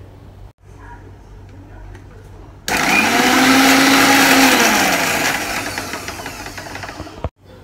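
Electric mixer grinder (Preethi Platinum Plus) grinding shallots, garlic and dried shrimp into a spice paste. The motor starts suddenly and runs loud for about two seconds, then its pitch drops and the sound fades over the last couple of seconds.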